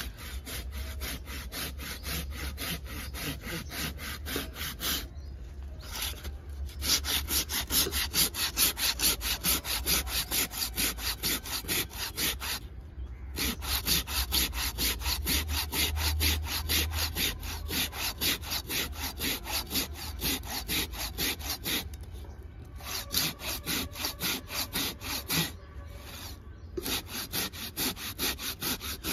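Hand pruning saw cutting into a thick Celtis australis trunk with quick, steady back-and-forth strokes, rasping through the wood. The sawing stops briefly a few times and starts again.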